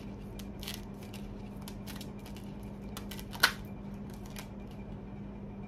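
A tarot deck shuffled by hand: a run of soft, irregular card clicks and flicks, with one sharp snap about three and a half seconds in.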